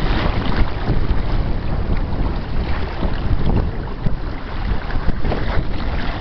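Wind buffeting the microphone in a 15-knot breeze, over water rushing and splashing along the hull and outrigger floats of a Hobie Adventure Island sailing kayak moving fast under sail. The splashing comes in irregular surges as the boat hits the chop.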